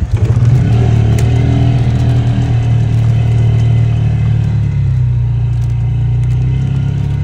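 Engine of an off-road utility vehicle running as it drives the dirt trail. The engine picks up just after the start, then holds a steady pitch.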